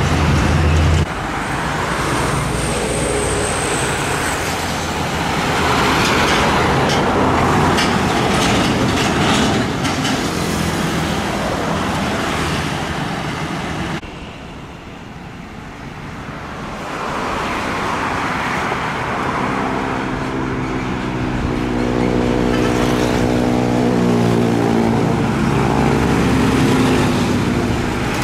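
Road traffic with heavy diesel trucks, cars and motorcycles running close by. About two-thirds of the way in, an approaching truck's diesel engine grows louder, its note rising in pitch and shifting as it comes on.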